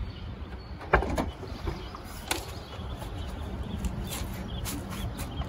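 A car door being opened: a sharp click about a second in and another knock a little later, over a steady low rumble.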